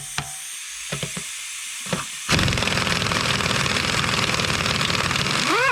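Impact wrench hammering on a split-rim wheel nut of a Gaz66 truck, loosening it. It starts a little over two seconds in with a fast, even rattle of blows and winds down in falling pitch at the end. Before it come a few light clicks.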